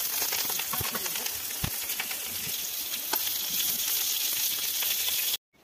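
Green chillies sizzling and crackling in hot oil in a black kadai while being stirred. The sizzle cuts off suddenly near the end.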